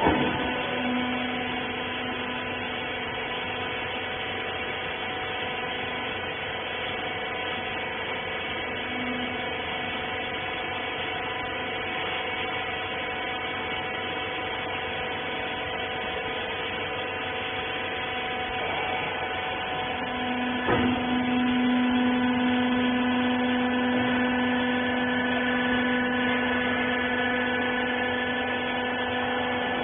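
Hydraulic rag baler's pump motor running with a steady humming whine. A sharp click comes about 21 seconds in, after which the hum is louder.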